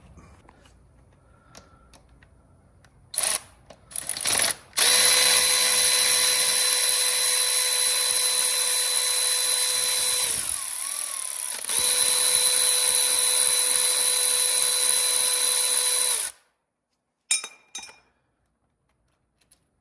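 Cordless power driver spinning out the 8 mm bolts of a timing chain tensioner: two short trigger blips, then a steady high whine for about five seconds that eases off briefly and runs again for about four seconds before stopping.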